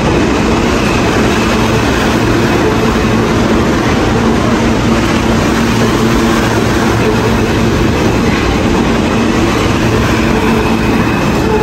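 New York City Subway train running past close by along the platform: a steady loud rumble of steel wheels on rail, with a steady motor hum running through it.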